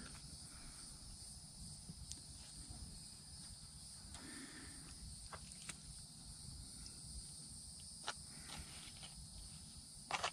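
Quiet outdoor ambience: a steady faint insect hum, with a few light clicks and rustles now and then.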